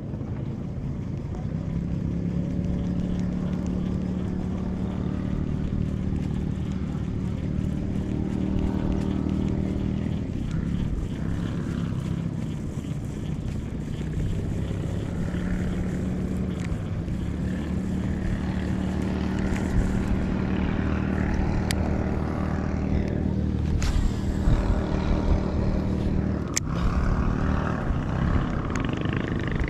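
A small boat's engine running steadily, its pitch wavering a little now and then, with a few sharp knocks in the second half.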